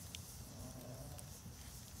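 Wood campfire burning, with a couple of sharp crackles from the logs over a low steady rumble.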